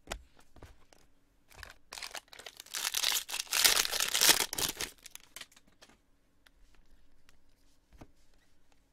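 Foil wrapper of a jumbo baseball card pack being torn open and crinkled: a burst of rustling that starts about a second and a half in, is loudest in the middle and dies away about five seconds in, with a few light clicks of cards being handled around it.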